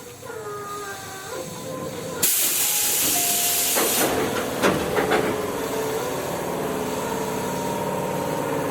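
Tobu 8000 series electric train at a station stop: a sudden loud burst of compressed-air hiss about two seconds in, lasting about two seconds, followed by a few clunks.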